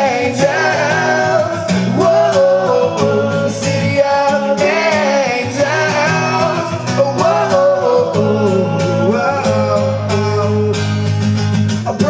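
Live acoustic pop: male vocals singing over a strummed acoustic guitar, with the chords changing about every two seconds.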